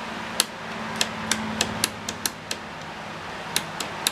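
About a dozen sharp, irregular clicks and taps from hands and tools working on the stiff switch of an old power supply, over a steady low hum.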